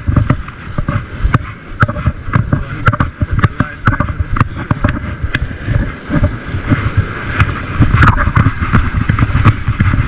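Heavy ocean surf breaking and washing up the beach, with a low rumble of wind on the microphone and frequent sharp clicks and knocks close to it.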